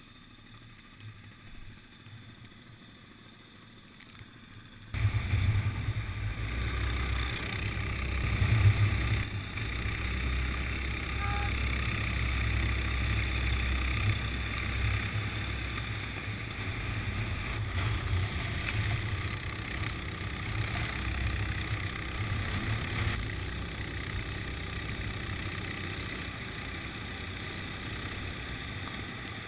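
Onboard sound of a go-kart racing: the kart's engine running under way with heavy wind buffeting on the camera microphone. It comes in suddenly about five seconds in after a quieter opening, then stays fairly steady.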